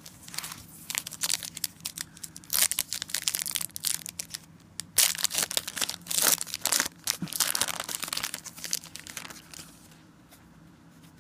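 Foil wrapper of a 2013 Momentum football trading-card pack being torn open and crumpled by hand: a long run of crackling crinkles and rips, loudest in two stretches in the middle, dying away near the end as the cards come out.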